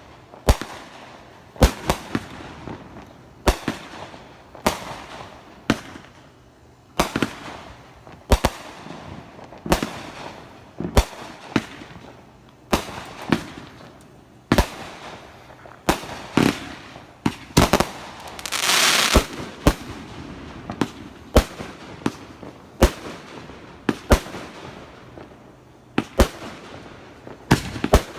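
Fireworks going off in a steady string of sharp bangs, about one every second or so, some in quick pairs. A longer, loud hissing crackle comes about two-thirds of the way through.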